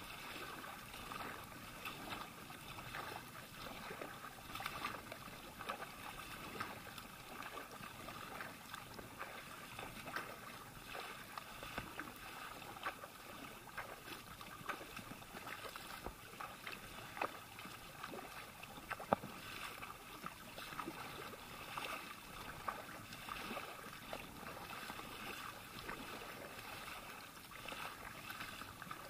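Kayak paddle strokes dipping and splashing, with water washing along the hull: a steady wash of water noise broken by many small irregular splashes.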